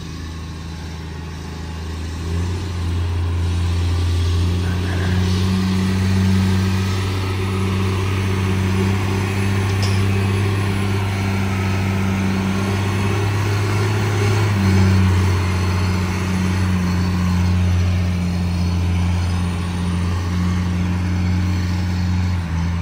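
Engine running steadily with a low drone. Its note shifts a little about two seconds in and again about two-thirds of the way through.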